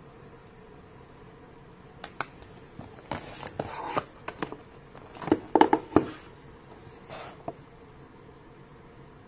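Hands handling smartphones and a white cardboard phone box: a run of clicks, taps and short scrapes, loudest in a cluster of knocks a little past the middle.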